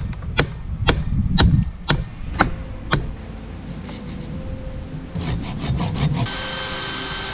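A hammer striking an oak branch and table frame about twice a second for the first three seconds, then a hand saw cutting through a branch.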